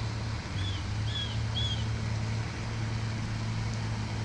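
Steady low machine hum, with three short high chirps about a second in.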